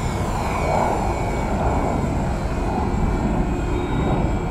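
Twinstar RC model plane's twin electric motors and propellers whining steadily as it climbs and banks overhead.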